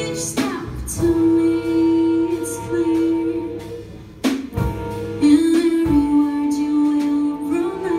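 Live jazz quintet playing, with long held melody notes over electric guitar. Two sharp percussive hits land about half a second in and just after four seconds in.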